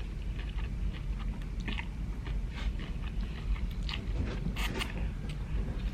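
A person biting and chewing crunchy food, with many short, irregular crunches.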